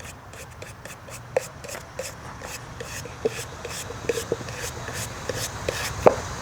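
Brass wire brush scrubbing charred wood off a torched green-wood bowl, in quick scratchy strokes about three a second, with small knocks among them. The brushing clears the burnt-out soft grain.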